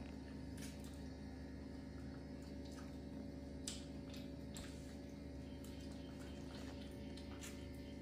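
Faint eating sounds: a few soft clicks and squishes as food is picked apart by hand and chewed, over a steady low hum.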